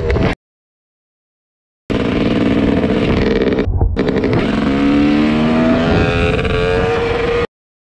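Dirt bike engine running while riding along a road, its pitch climbing as it accelerates about halfway through. The sound drops out to dead silence for about a second and a half near the start and again briefly near the end.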